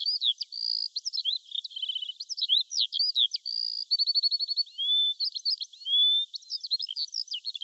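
A songbird singing a fast, varied song of short chirps, clear whistled notes and rapid trills of repeated notes, all high and thin.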